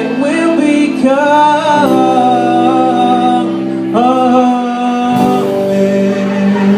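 A live acoustic string band playing, with singing in long held notes over guitar; new sung phrases begin about a second in and again about four seconds in.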